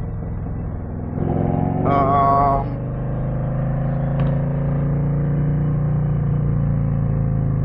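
Harley-Davidson Street Glide ST's Milwaukee-Eight V-twin running through a custom C3 Vtwin 2-1 exhaust while riding. It gets louder about a second in as the engine pulls, then holds a steady cruise. A brief higher-pitched sound comes about two seconds in.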